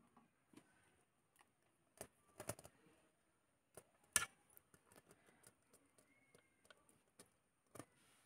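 Faint, scattered clinks and taps of a steel spoon and bowl against a steel plate as thick batter is scraped out into it, the sharpest clink about four seconds in.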